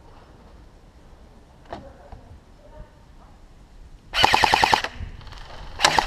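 Airsoft rifle firing a short full-auto burst of about a dozen rapid shots just over four seconds in, followed by a single shot near the end.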